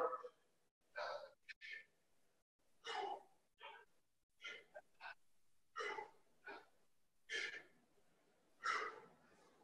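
A man breathing hard in short puffs, one or two about every one and a half seconds, in rhythm with one-arm kettlebell snatches.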